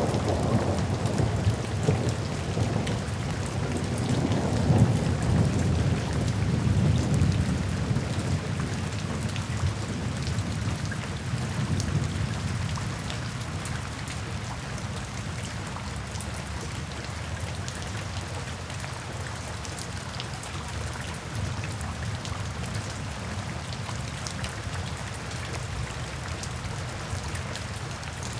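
Steady rain with a low roll of thunder in the first several seconds that dies away by about halfway, leaving the even hiss of the rain.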